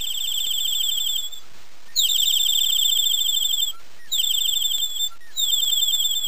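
A bird's trilled song: four fast trills of high, clear chirps, each lasting about a second to a second and a half, with short pauses between them.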